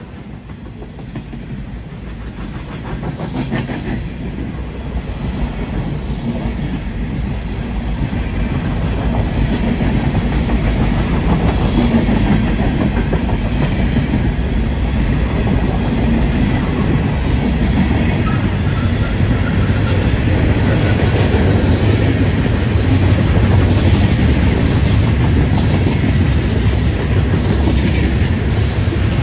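Freight cars of a long Florida East Coast freight train rolling past on the rails, the sound growing louder over the first several seconds and then holding steady.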